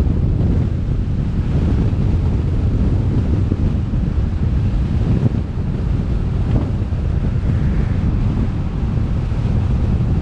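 Wind buffeting the microphone of a moving camera: a loud, steady low rumble with no distinct events.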